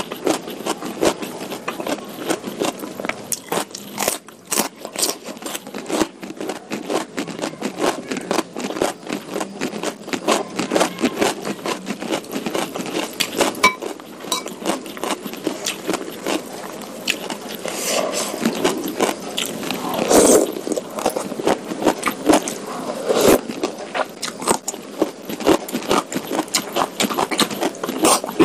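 Close-miked eating sounds: wet chewing and mouth clicks on soupy curry noodles and beef meatballs, a quick irregular run of small clicks, with a few louder, noisier moments about two-thirds of the way through.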